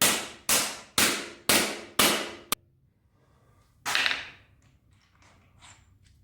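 A hammer striking a star nut setting tool, driving a star nut down into a bike fork's steerer tube: five sharp, ringing blows about two a second, a light tap, then one more blow about four seconds in and a few faint taps.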